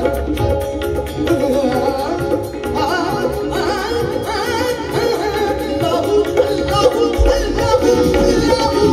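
Live Sufi qawwali song: women's voices singing ornamented, wavering lines over harmonium and drums. The voices come to the fore about three seconds in.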